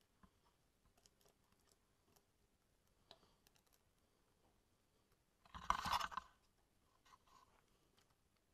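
Faint scattered clicks and small scrapes of engine parts being handled, with one louder rough scraping rustle lasting under a second partway through.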